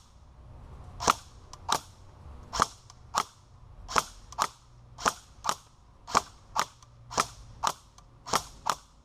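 Airsoft rifle firing single shots in quick succession at a wooden board, heard from behind the wood: about fourteen sharp cracks, roughly two a second, as BBs are fired and strike the wood.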